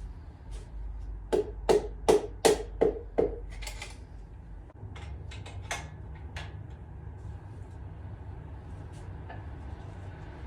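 About six quick, sharp taps in a row, each with a short ring, then a few lighter clicks and knocks: a piston with rings being tapped down into its cylinder bore on a small-block Ford short block.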